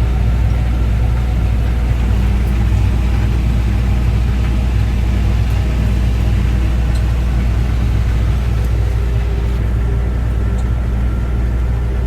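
Combine harvester running steadily under harvest load: a continuous, even, low diesel engine drone with a constant hum.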